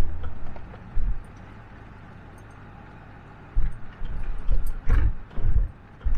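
Ford Ranger pickup jolting along a rough, rocky dirt track: irregular low thumps and rattles, one about a second in and a run of them through the second half.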